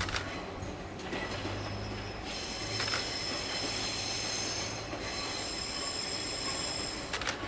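167 series electric multiple-unit train rolling slowly on a curve, its wheels squealing in several high steady tones from a little after two seconds in. Under it runs a low hum, and a few sharp clacks come at the start, about three seconds in and near the end, as wheels pass over rail joints.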